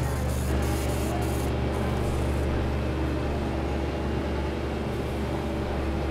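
A steady low hum with faint held tones above it, with a light hiss in the first couple of seconds.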